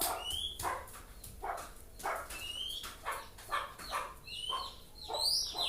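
Oriental magpie-robin (kacer) singing: a fast run of short harsh chattering notes mixed with about four brief rising whistles.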